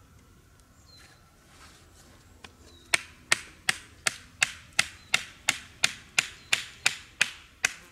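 A knife blade is driven down into the top of a freshly cut, still-green wooden stick by about fourteen sharp strikes, about three a second, starting about three seconds in: the stick's end is being split for a torch.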